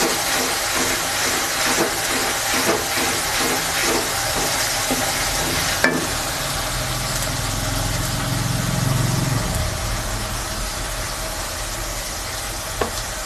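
Ginger-garlic paste and onions sizzling in hot oil in a pan, stirred with a spatula at about two strokes a second for the first half, then a sharp click. A low hum swells briefly in the middle.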